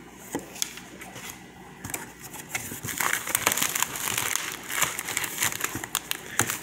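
Plastic mailing envelope and packing crinkling and rustling as a hand rummages in a cardboard box. It is faint at first and grows louder from about two seconds in.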